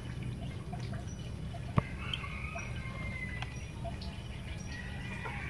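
Faint bird calls over a steady low hum, with a few small ticks and one sharp click about two seconds in.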